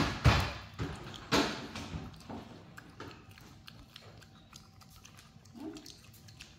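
Macaques eating small dried shrimp: crunchy chewing and sharp clicks of shrimp being picked up. The loudest crunches come in the first two and a half seconds, with only faint clicks after.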